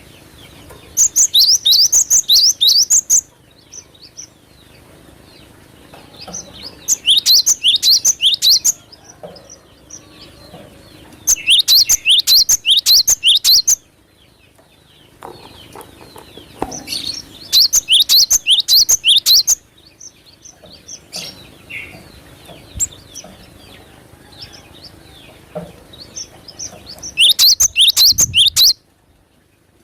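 Cinereous tit (glatik batu) singing: five loud bursts of rapid, high repeated notes, each about two seconds long, with fainter chirps between them.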